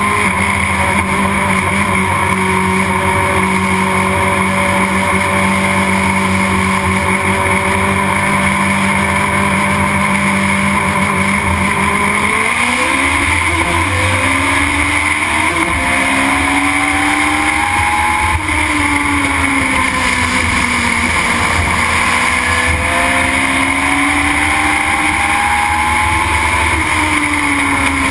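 Legend car's Yamaha four-cylinder motorcycle engine heard from inside the cockpit at racing speed. It holds a steady pitch at first. About twelve seconds in it begins sweeping up and down in long rises and falls, climbing as the car accelerates and dropping as the driver lifts.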